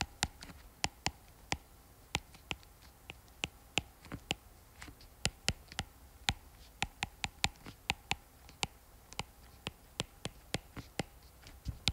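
Stylus tip tapping and clicking on a tablet screen during handwriting: many short, sharp clicks at an irregular pace, several a second, in bunches as each symbol is written.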